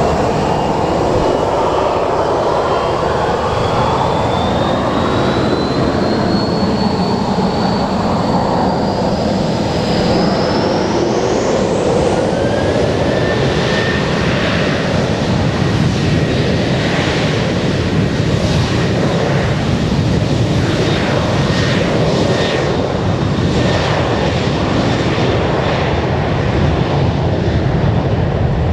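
Boeing 737-800's CFM56 jet engines spooling up to takeoff thrust: loud, steady engine noise with a high whine that climbs in pitch for about twelve seconds, then a second, lower whine joins as the jet accelerates down the runway.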